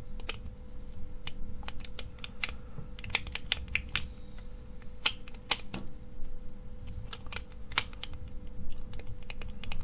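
Irregular sharp clicks and taps of a clear plastic fidget spinner case being pressed and squeezed together by hand around its circuit board, a tight fit. A faint steady hum runs underneath.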